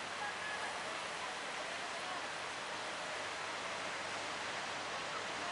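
Steady rushing hiss of sea surf and choppy waves at a river-mouth sea channel, with faint distant voices now and then.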